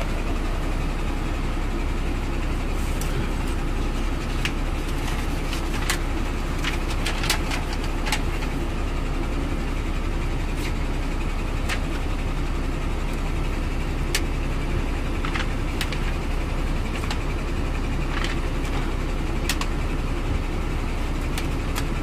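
Samsung air purifier fan running on high, a steady rush of air, with a sheet of paper held in the outflow fluttering and crackling in scattered short clicks over a steady low hum.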